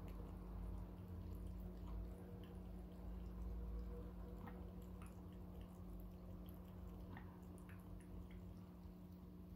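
Cat lapping water from the bowl of a cat water fountain: faint, irregular small wet clicks, with water dripping and trickling into the bowl over a steady low hum.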